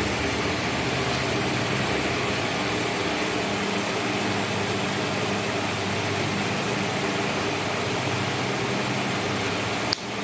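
Steady room air-conditioning hum with an even hiss, unchanging, with a brief drop in level just before the end.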